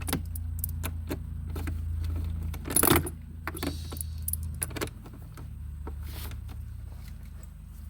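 Metal sockets and tools clinking and clacking as a smaller socket is picked out of a socket set, with one loud clack just under three seconds in. A steady low hum runs underneath.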